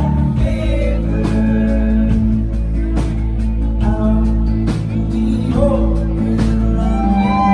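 A live band playing a song: guitar and bass under a steady drum beat about once a second, with long sung vocal notes over the top.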